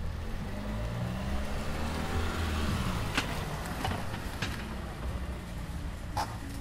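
A small car's engine running as it drives up close and pulls to a stop, its pitch rising then falling. A few sharp clicks come in the second half.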